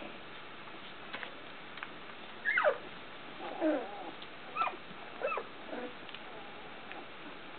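A 16-day-old puppy whimpering: a run of about five short, squeaky cries, each falling in pitch, starting about two and a half seconds in.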